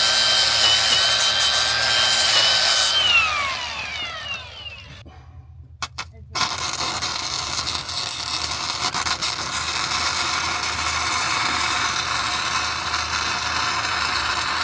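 A power tool runs with a steady whine and hiss, then spins down about three seconds in. After a short quiet gap and a couple of clicks, a welding arc strikes and crackles steadily for the rest of the time.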